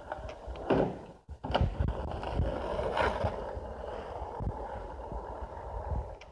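Skateboard wheels rolling on street asphalt, with a few sharp knocks of the board in the first three seconds.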